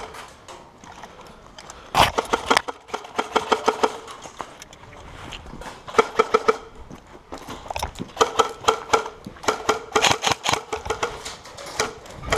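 Airsoft electric guns firing several rapid full-auto bursts, each a fast run of shots over a steady motor whine. The bursts come about two seconds in, again just after, around six seconds, and in a longer stretch near the end.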